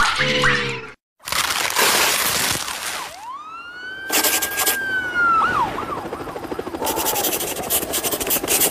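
A string of cartoon sound effects: a short buzzing tone, a moment of silence, a noisy crash, then a whistle that slides up, holds and drops, with more crashing noise near the end.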